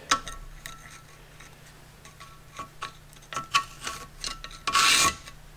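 Metal parts clinking and knocking against each other in a scatter of sharp taps, some with a short ring, with a brief scraping rub about five seconds in.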